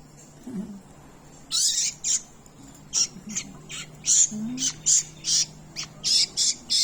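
Wild baby birds giving a rapid series of short, harsh, high-pitched squawks, about a dozen starting around a second and a half in, the begging calls of nestlings at feeding time.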